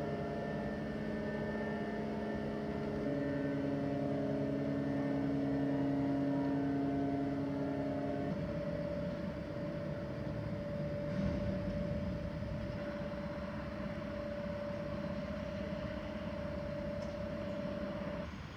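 The 1200 hp MaK diesel engine of the 1939 inland motor cargo ship Harudha running steadily, a droning hum with several held tones. About eight seconds in, the sound changes abruptly to one steady tone over a rougher rumble.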